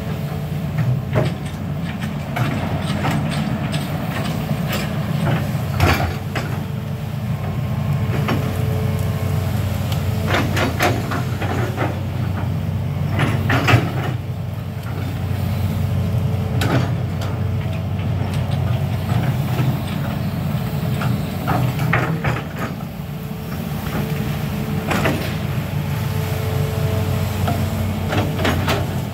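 Hitachi amphibious excavator's diesel engine running steadily as the machine digs, with repeated knocks and clanks from the boom and bucket working the canal bank.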